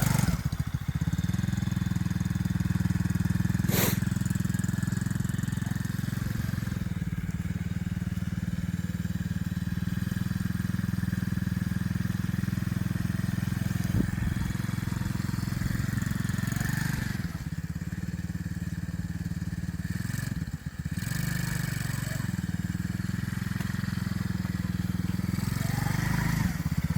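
Kids' mini ATV with a 110cc four-stroke single-cylinder engine running steadily, with one sharp click about four seconds in.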